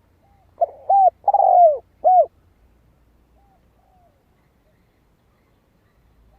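Spotted dove cooing: one phrase of four loud coos, the third a long drawn-out note falling in pitch, then two faint short coos a second or so later.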